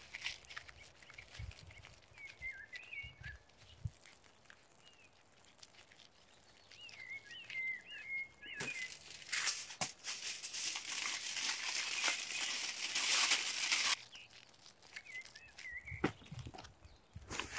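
Aluminium foil crinkling and rustling as it is folded around food by hand, heaviest in the second half and cutting off suddenly. A small bird chirps briefly three times in the background.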